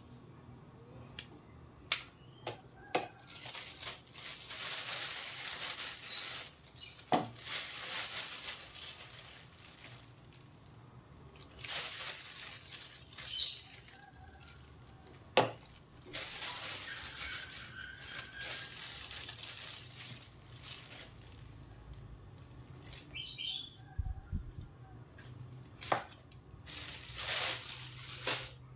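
Hands rustling a plastic bag and tearing leaves, in repeated bursts of crinkling a second or more long, with a few single sharp clicks in between.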